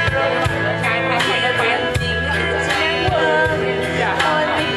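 Background music: a song with a singer's voice over sustained bass, guitar and a steady beat of about two strokes a second.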